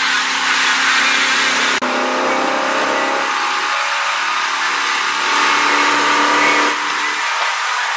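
Tow boat's engine running at a steady speed under a loud rush of wind and water spray, with a brief break about two seconds in.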